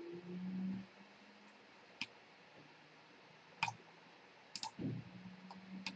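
Computer mouse clicking about five times, single sharp clicks spread a second or so apart. A short low hum comes at the start and another near the end.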